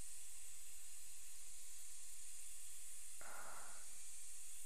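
Steady high-pitched background hiss, with a short breath-like rush of noise about three seconds in.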